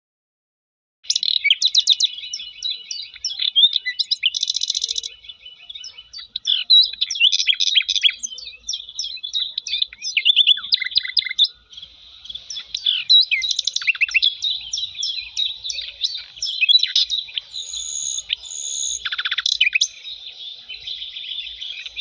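Cockatiel chicks begging for food while being fed: dense, rapid, high chirping that starts about a second in and carries on without a break.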